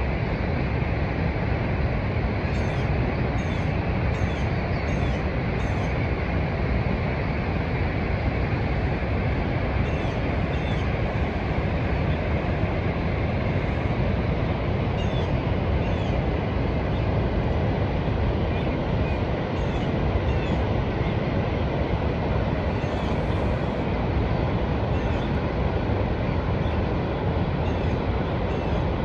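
The steady roar of Niagara Falls, a loud, unbroken rush of falling water that is heaviest in the low end. Faint, short high chirps come through it, a quick run of them about three seconds in and a few more later.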